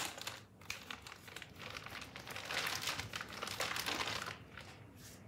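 Clear plastic pocket pages of a trading-card binder crinkling as they are flipped, in irregular rustles that die down near the end.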